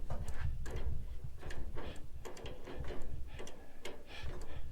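Ratchet wrench clicking in short runs of quick ticks, working on a stuck fastener that won't come loose.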